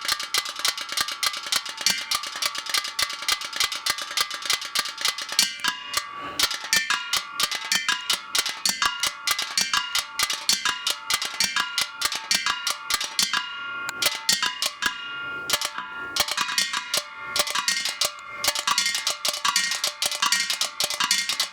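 Improvised metal percussion played with a fast, continuous run of strikes, each hit leaving a bright metallic ring.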